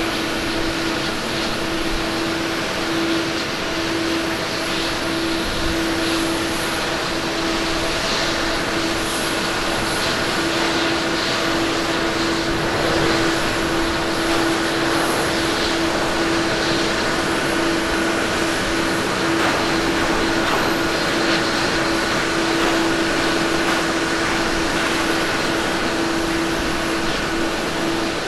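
Airbus A350 airliner's twin turbofan engines on touchdown and landing roll: a steady rushing jet noise with a steady hum running under it.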